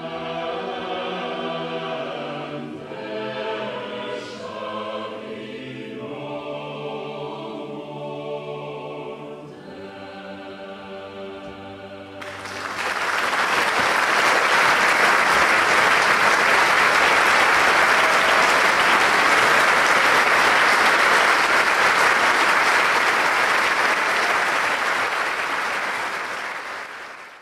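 Mixed choir with orchestra singing slow, sustained chords. About twelve seconds in, this cuts abruptly to louder, steady audience applause, which fades out at the very end.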